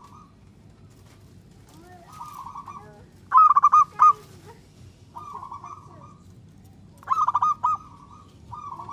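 Zebra dove (perkutut) cooing: two loud phrases of quick, stuttering coo notes, about three and seven seconds in, with softer cooing phrases between them.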